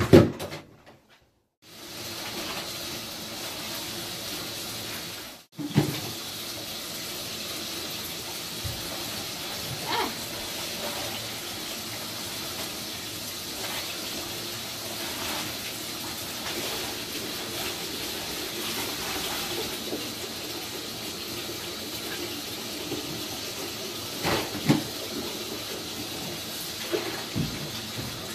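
Water running from the tap into a bathtub, a steady hiss that starts about two seconds in and cuts off briefly around five seconds before running on. A loud knock comes right at the start, and a few lighter clunks of hands and a plastic basin sound in the tub.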